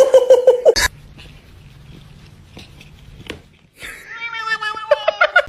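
Cat meowing: a long high-pitched meow about two thirds of the way in that drops in pitch toward its end, after a loud wavering vocal sound at the very start and a few soft clicks between.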